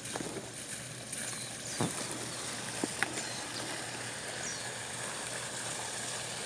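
Faint outdoor background hiss with a couple of light, sharp clicks, one about two seconds in and one about three seconds in.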